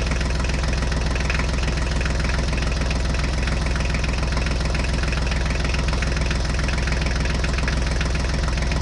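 Tractor engine idling steadily with a fast, even beat.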